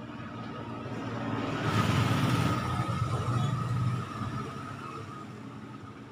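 A motor vehicle passing by, its engine and road noise swelling to a peak about two seconds in and fading away over the next few seconds.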